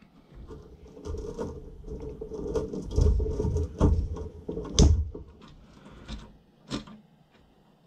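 Plastic dust-extraction quick-connect adapter being handled, pushed and twisted onto a power tool: irregular clicks, scrapes and knocks, the sharpest knock about five seconds in, as the adapter fails to lock.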